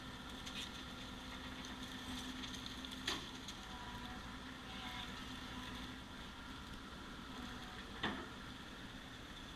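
Excavator engine running steadily, with two sharp knocks about five seconds apart.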